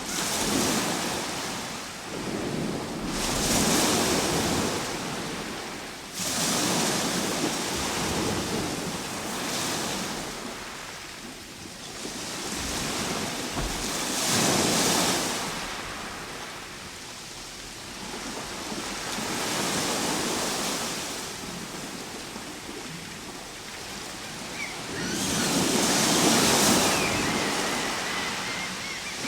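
Ocean waves breaking and washing ashore, the surf swelling and ebbing every four to six seconds.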